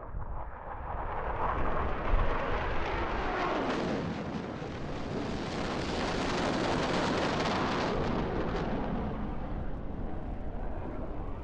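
Added explosion sound effect for a jet fighter crashing into a fireball: a blast about two seconds in that swells into a long rushing rumble through the middle, then dies down near the end.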